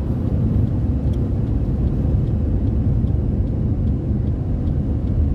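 Steady low rumble of road and engine noise inside a moving Ford Territory, with a faint regular ticking, about three a second.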